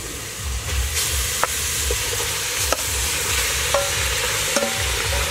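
Chopped pork feet sizzling as they are spooned from a steel bowl into a hot pot, with a steady hiss and a few sharp clinks of the metal spoon against the bowl.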